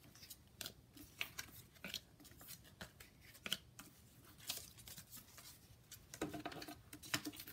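Paper and card being handled: faint rustling with scattered crisp clicks and crackles as postcards and paper pieces are shuffled and slid into and out of a kraft paper envelope.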